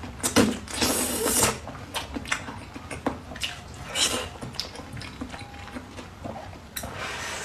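Close-miked eating sounds: a bite into a glazed meat roll, then wet chewing and lip smacks in irregular clicks and squelches, with a louder bite about a second in and another around four seconds.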